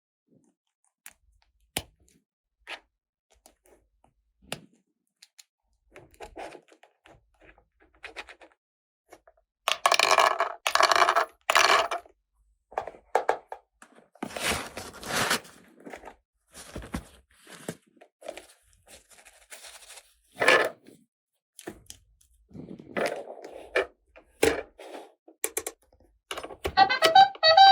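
Small plastic toy parts and packaging being handled: scattered clicks and knocks, with a few crinkling, rustling bursts of plastic. Just before the end, a sung tune begins.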